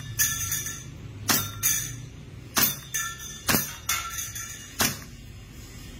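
Armorer Works VX9310 Glock 19 gas blowback airsoft pistol firing about five shots, roughly one a second. The sharp pops are mixed with metallic clinks from BBs striking the steel plates of a Texas Star target.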